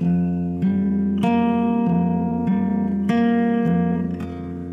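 Instrumental background music: pitched notes changing about every half second over a steady low tone.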